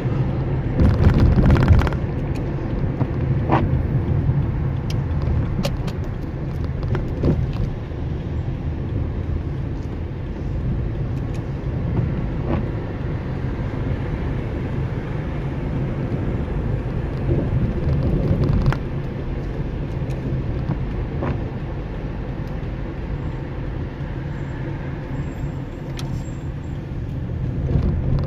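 A car running steadily, a low engine and road rumble with a few short clicks scattered through it, a little louder about a second in.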